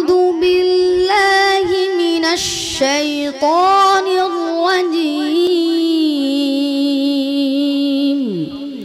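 A boy's voice chanting Quran recitation (tilawat) into a microphone in long, drawn-out notes with ornamental turns. The pitch steps down about halfway through, and the last held note falls away near the end.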